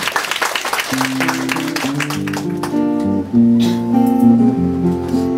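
Live acoustic string ensemble starting a song: after about a second of dense, rapid patter, long sustained low notes come in and build into held chords. The low strings belong to the band's cello and double bass, with plucked strings alongside.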